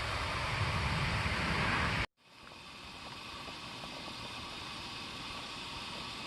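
Steady hissing noise with no tone in it. It is louder for the first two seconds, cuts off abruptly, then comes back quieter with a few faint ticks.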